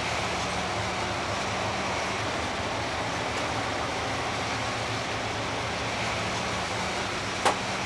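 Steady engine and road noise of a moving city bus heard from inside the passenger cabin, with a faint low hum under an even rumble. There is a single sharp click near the end.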